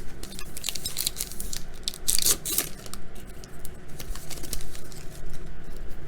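Trading cards and a foil pack wrapper being handled: scratchy rustling, crinkling and tearing, with brief louder swishes about two and a half seconds in.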